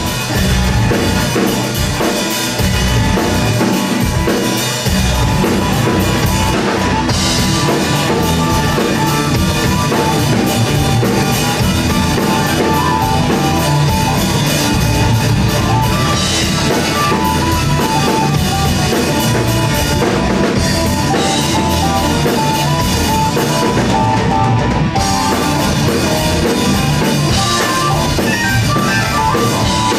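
Live rock band playing an instrumental passage: drum kit with bass drum, electric guitars, bass and keyboards, loud and dense throughout.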